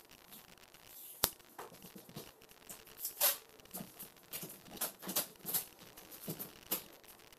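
Plastic bags and packaging crinkling and rustling in a string of short crinkles as goods are unpacked from a cardboard box, with one sharp click about a second in.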